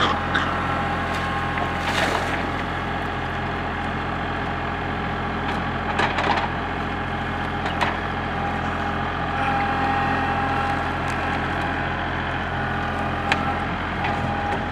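Kubota tractor's diesel engine running steadily while the grapple sets a log onto a trailer load of logs, with several knocks and cracks of wood on wood, the sharpest near the end.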